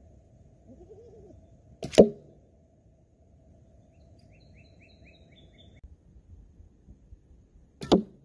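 A bow shot: a sharp snap of the string as an arrow is released, about two seconds in, and another sharp hit near the end as an arrow strikes a foam block target. Faint bird chirps come in between.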